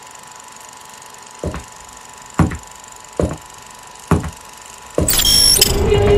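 Edited intro soundtrack: four heavy thumps roughly a second apart, each with a short falling tail, over a faint steady electronic tone. About five seconds in, a loud whoosh sweeps in and a sustained synth note begins.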